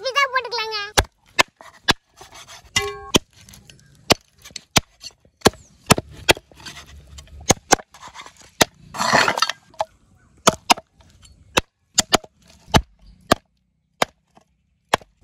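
Chicken being chopped on a cutting board: sharp, irregular blows, somewhat under two a second, with a short stretch of rustling noise about nine seconds in.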